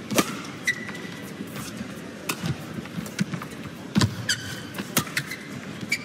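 Badminton rally: a string of sharp racket-on-shuttlecock hits, spaced irregularly about a second apart, with short high squeaks of court shoes on the mat between them, over quiet hall ambience.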